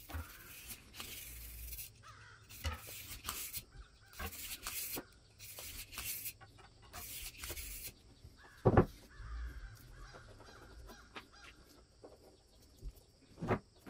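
Steel rod scraping through a metal block in short rasping strokes of metal on metal, about one a second. A single sharp metal knock comes about nine seconds in.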